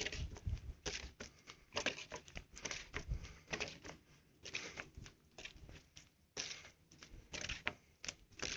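Footsteps on the wooden planks of a boardwalk: irregular soft knocks and clicks, several a second, with pauses near the middle.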